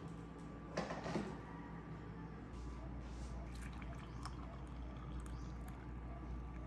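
Coffee poured from a French press into a ceramic mug, a thin stream trickling into the cup as it fills. A couple of light knocks about a second in, as the press is handled.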